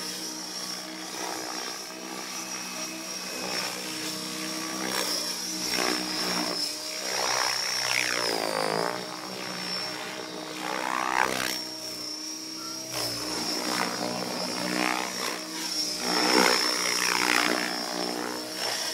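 Radio-controlled helicopter flying aerobatics: a steady high motor whine under the rotor sound, which swells and sweeps up and down in pitch several times as the helicopter manoeuvres and passes.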